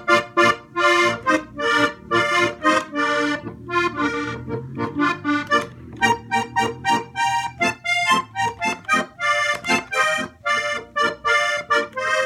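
Hohner Corona III three-row diatonic button accordion played in vallenato style: a quick run of short chords and notes, with low bass notes held underneath in the middle of the phrase.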